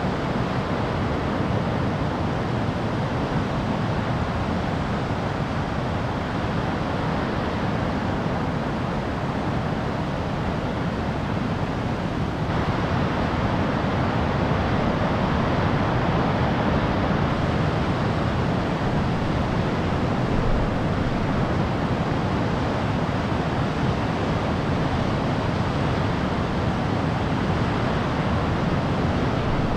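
Steady roar of heavy ocean surf from a big swell, with wind on the microphone. It gets a little louder about twelve seconds in.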